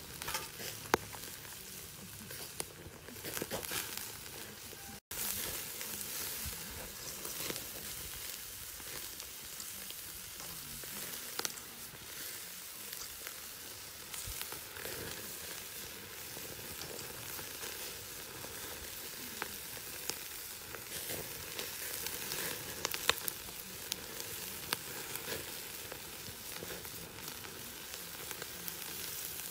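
Duck pieces sizzling on a wire grill over an open fire: a steady hiss with scattered sharp pops and crackles.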